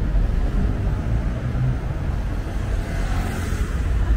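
City street traffic: cars passing with a steady low rumble, and a hiss that swells and fades about three seconds in as a vehicle goes by.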